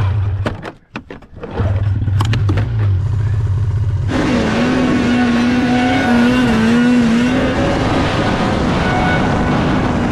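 2003 Polaris RMK 700 snowmobile's two-stroke twin engine: a few clicks over a low hum, then about four seconds in the throttle opens suddenly. It runs at high revs, with a wavering engine whine, as the sled climbs a steep slope.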